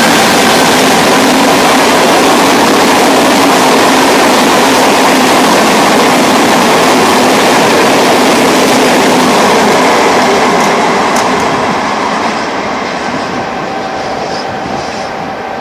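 Freight train of open wagons rolling past at close range: a loud, steady rumble of wheels on rail. It fades over the last few seconds as the end of the train passes and draws away.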